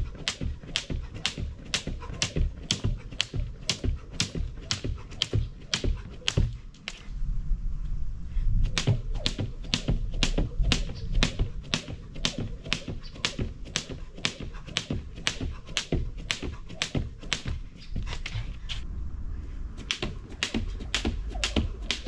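Skipping rope slapping the ground on each turn in a steady rhythm, a little over two strikes a second, with a short break about a third of the way in and another near the end.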